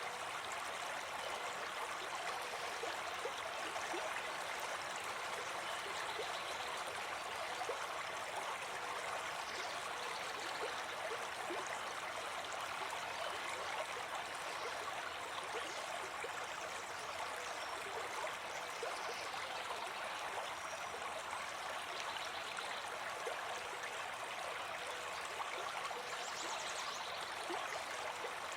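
Brook babbling: a steady, continuous rush and gurgle of flowing water.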